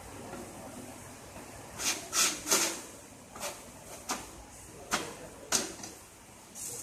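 Knocks and clatter of metal parts being handled and fitted in the open metal housing of a follow spotlight under assembly: a quick run of three loud knocks about two seconds in, then single knocks every half second to a second.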